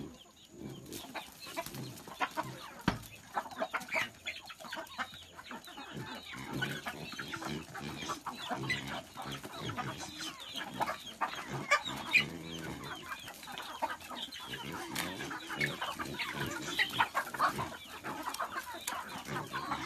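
A flock of chickens clucking and calling in many short, overlapping notes as they crowd in to be fed.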